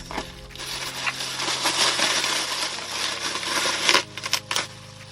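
Rustling and crinkling as a new camera case and its packaging are handled, with a few sharp clicks about four seconds in.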